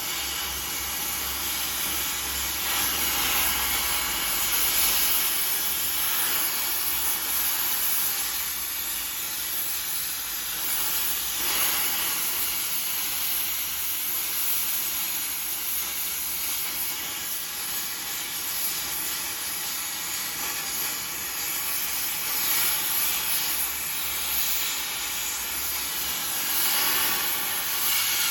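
Gas torch flame hissing steadily while heating square steel stock to cherry red, swelling a little now and then.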